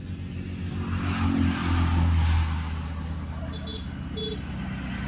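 A road vehicle passing close by: its engine hum and tyre noise swell to a peak about two seconds in and then fade. Two short high beeps sound near the end.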